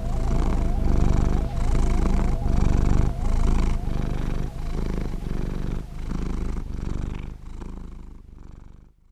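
Domestic cat purring close up: a low rumble that swells and breaks with each breath, about once a second, fading away over the last couple of seconds.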